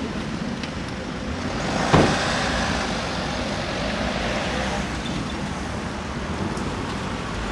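Street traffic ambience: a steady hum of cars on the road, with one sharp knock about two seconds in.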